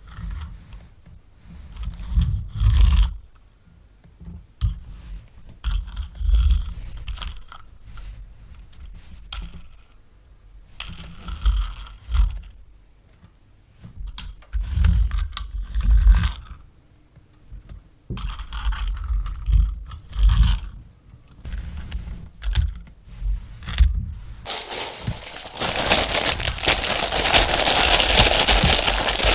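Hands unboxing a toy: irregular scrapes, knocks and rustles of packaging and plastic parts, then, from about 25 seconds in, continuous loud crinkling of packaging.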